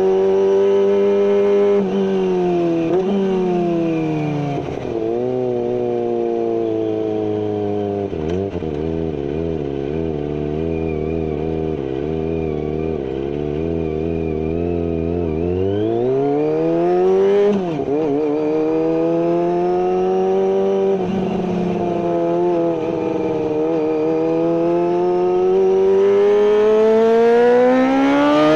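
Kawasaki ZX-25R inline-four engine through a carbon GPR full-system exhaust with no dB killer, its revs falling, holding low for several seconds, then climbing sharply, dropping suddenly and climbing again near the end.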